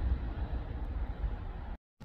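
Wind rumbling on the microphone over the faint noise of a distant electric train on the main line. The sound cuts out suddenly near the end.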